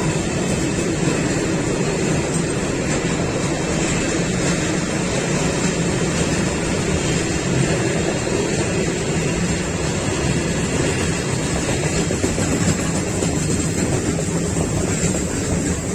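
Wagons of a long intermodal freight train, pocket wagons carrying semi-trailers and containers, rolling past with a loud, steady noise of steel wheels on the rails.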